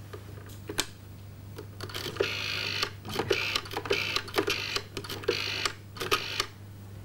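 A rotary telephone being dialled: a click, then the dial turned round and whirring back with a run of quick clicks, several times over for several digits.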